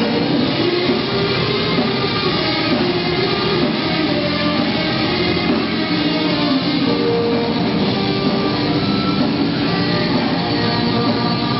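Heavy metal band playing live: electric guitar, bass guitar and drums, loud and continuous.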